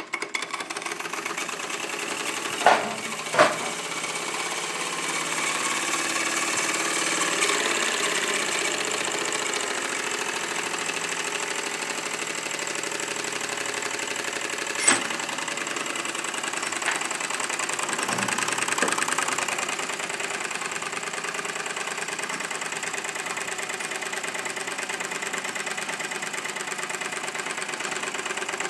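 Markie 1-inch scale model steam traction engine running fast under steam: a steady, rapid mechanical clatter from its cylinder and motion work, with a constant hiss. There are two sharp knocks about three seconds in and another about fifteen seconds in. The engine leaks steam at its glands and piston, which the owner says need new packing.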